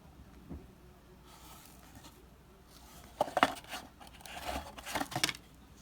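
Handling noise from a small old box being picked up and opened: quiet at first, then a flurry of rustles and sharp clicks about three seconds in that lasts around two seconds.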